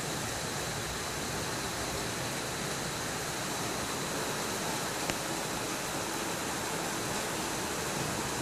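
Hailstorm: hail falling with a steady, even hiss of stones striking the ground and surfaces. One small sharp click about five seconds in.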